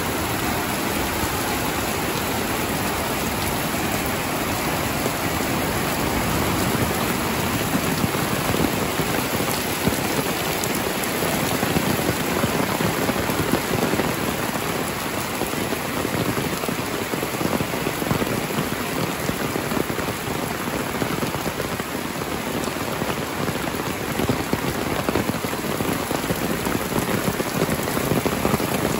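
Heavy rain falling steadily: a dense, even wash of drops with small swells in strength.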